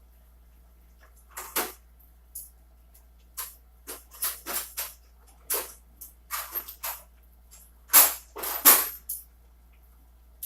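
Handling and rummaging sounds: a series of short rustles and clatters as small tools and parts are moved about, the loudest two near the end.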